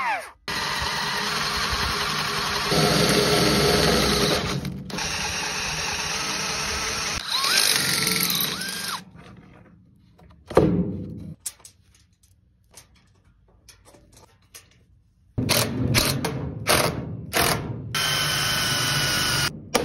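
DeWalt 20V cordless power tools running on wood. One tool runs steadily for about nine seconds. After a quieter stretch with a single short burst, a cordless drill runs in several short bursts as it drills into the wooden block.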